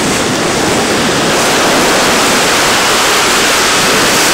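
Sea surf breaking and washing over a rocky volcanic shore: a loud, steady rushing noise.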